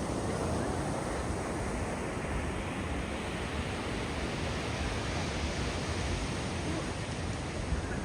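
Ocean surf washing onto a beach: a steady rushing wash whose hiss grows brighter a couple of seconds in.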